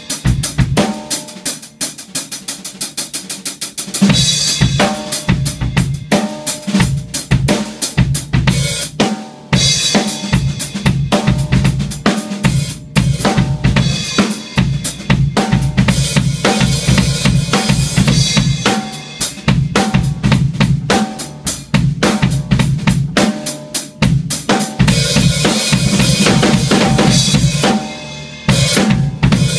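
Acoustic drum kit played solo in a free, improvised style: fast strokes on snare, hi-hat and cymbals, with the bass drum coming in about four seconds in and driving a heavy beat with fills, broken by a short pause about nine seconds in.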